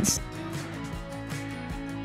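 Background music with held tones and a light, even pulse.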